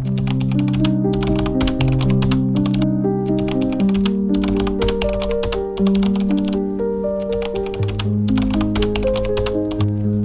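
Calm medieval-style instrumental music, slow held bass notes under a gentle melody, over a crackling campfire with irregular sharp pops and snaps.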